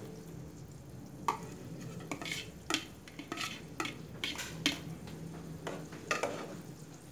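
Spatula scraping diced ham out of a bowl and stirring it into a saucepan of hot coconut milk: irregular short scrapes and light knocks against the bowl and pot.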